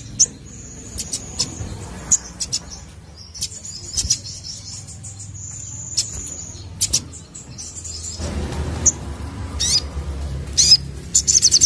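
Crimson sunbird singing: high thin drawn-out notes broken by sharp chips, ending in a fast, even rattling trill near the end.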